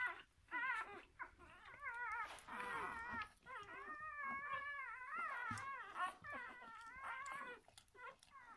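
Six-day-old puppies whining and squeaking in high, wavering cries, several overlapping at once.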